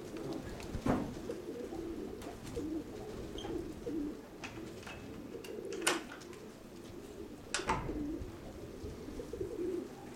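Nikolaev pigeons cooing continuously in a low warble. Three sharp cracks cut through: about a second in, near six seconds, and again about a second and a half later.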